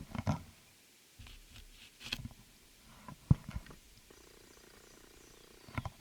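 Wild turkey purring: a soft rolling purr, twice, among irregular rustles and knocks, with one sharp knock near the middle.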